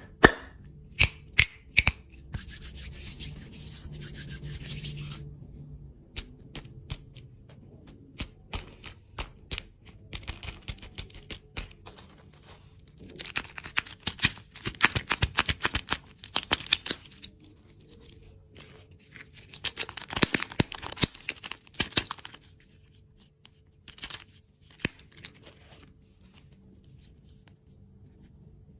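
Close-up ASMR sounds of candy and desserts being handled: a run of sharp clicks and taps, with two bursts of dense crackling and tearing noise, the first just before halfway and the second a few seconds later.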